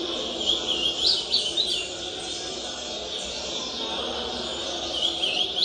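Ultramarine grosbeak (azulão) singing a short warbled phrase about half a second in and starting another near the end, a rate typical of a bird giving about 12 songs a minute. Steady background noise runs beneath.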